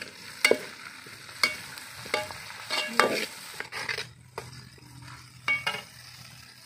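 Metal ladle stirring chopped tomatoes into onions frying in oil in a metal pot, with a light sizzle and several sharp metallic clinks as the ladle strikes the pot.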